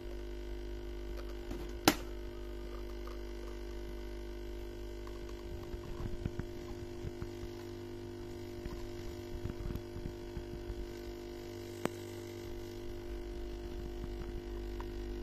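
Espresso machine pump humming steadily while a double shot pours, the pump run through a dimmer mod. There is a sharp click about two seconds in, a smaller one near twelve seconds, and irregular low knocks in between.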